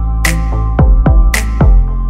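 Background electronic music with a steady drum-machine beat: a sharp snare-like hit twice, about a second apart, and deep kicks that drop in pitch, over a held bass and sustained notes.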